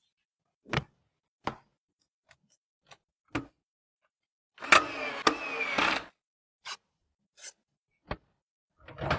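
A series of separate small clicks and taps of computer parts being handled and fitted, with a longer scraping rustle and a sharp snap about five seconds in.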